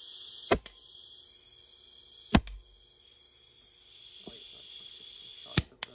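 Three sharp blasts of compressed air from a 3D-printed HPA blaster core firing, spaced about two and three seconds apart, each followed by a fainter click. The air tank is almost empty, so the shots are getting weaker.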